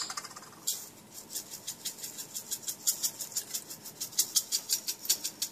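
Hand-twisted seasoning grinder grinding over the apples: a fast, even run of ratcheting clicks, about five or six a second, starting about a second in after a single sharp click.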